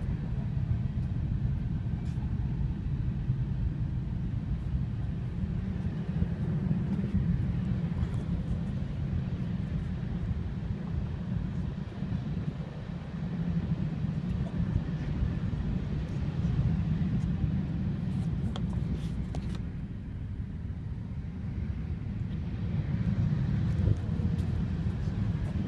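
Helicopter running: a steady low rumble.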